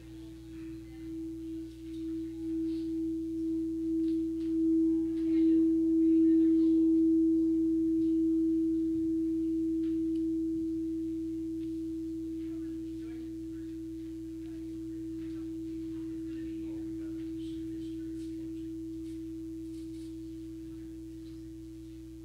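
Singing bowl rubbed around its rim, its single tone swelling in a slow wavering pulse over the first six seconds, then ringing on and slowly fading.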